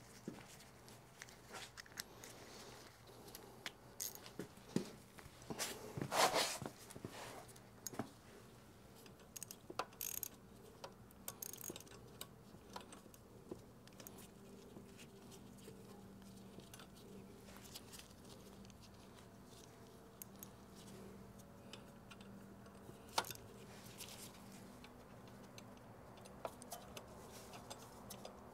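Small metal hand tools clinking and rattling at intervals: a socket wrench with small universal-joint adapters being fitted and worked on a motorcycle's radiator mounting bolts. There is a louder cluster of rattles about six seconds in. A faint steady low hum runs underneath.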